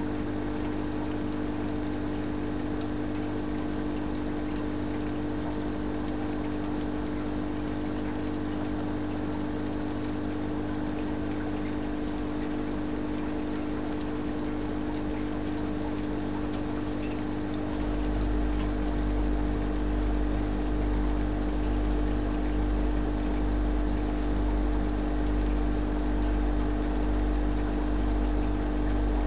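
Steady electric hum with several held tones, as of an aquarium air pump driving a sponge filter. About eighteen seconds in, a deeper, slightly pulsing hum joins and the sound grows a little louder.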